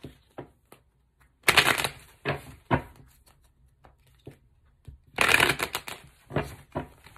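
A deck of reading cards being shuffled by hand. There are two bursts of rapid card riffling, about a second and a half in and again about five seconds in, each followed by a few sharp taps of the cards.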